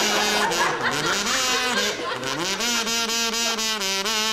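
A man singing in long drawn-out held notes, with audience laughter mixed in near the start.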